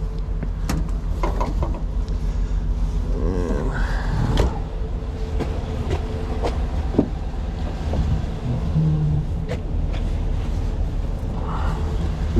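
An engine idling steadily in the background, with scattered clicks and knocks of handling throughout.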